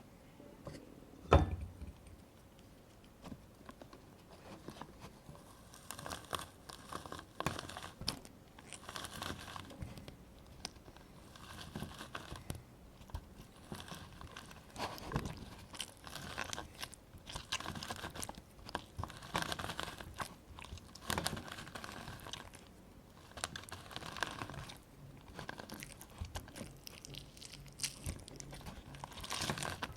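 A lemon squeezed by hand, crushed again and again in irregular short wet crackling bursts. A single sharp knock about a second and a half in is the loudest sound.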